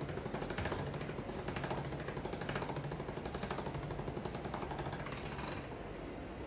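Hand-cranked stainless-steel pasta machine turned to roll a sheet of noodle dough: a rapid clicking rattle from its gears and rollers, swelling about once a second, which stops about five and a half seconds in.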